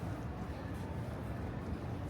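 Outdoor city street ambience: a steady low rumble with faint, indistinct sounds above it.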